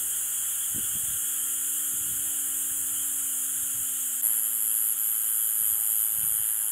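Steady high-pitched chirring chorus of night insects in the grass and trees. A little after four seconds it gets slightly louder and a sharper, thin high trill joins in.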